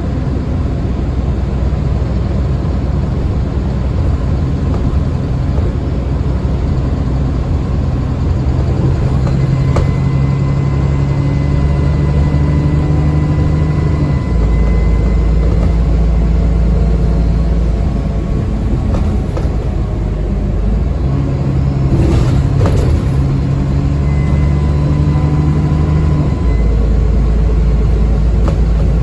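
ADL Enviro 400 Trident double-decker bus under way: a steady, loud engine note with a thin high turbo whine that comes and goes. The engine note changes abruptly twice, about halfway through and again near the end.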